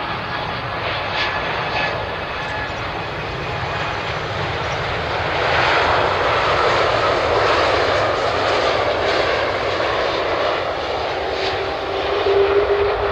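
Airbus A330 jet engines on a landing approach, the whine and rush growing louder about five seconds in as the airliner passes close overhead. Near the end a steady whine rises as it touches down on the runway.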